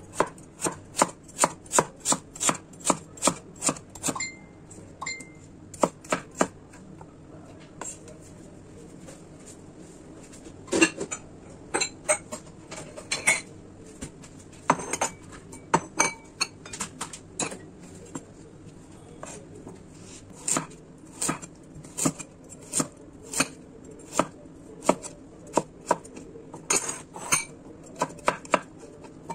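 Kitchen knife chopping peeled potato and later carrot on a bamboo cutting board: a long run of sharp knocks of the blade striking the board, about two to three a second, with a few short pauses.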